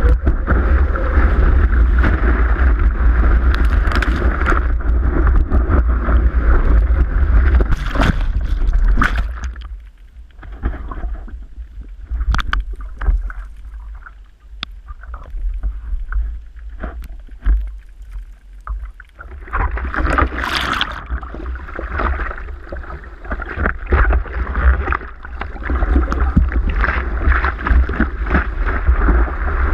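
Wind buffeting and water rushing over a surfboard-mounted GoPro while riding a wave, a loud steady rumble. About a third of the way in it drops to a muffled, quieter sound with small clicks while the camera is under water, then loud water splashing and wind noise return and run on as the surfer paddles.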